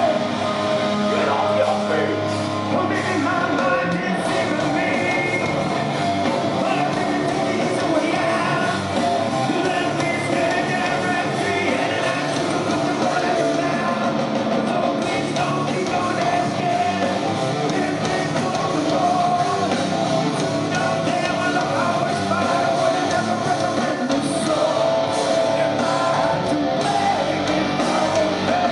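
Live heavy rock band playing loud, with distorted electric guitars, drums and a singing voice, continuous throughout.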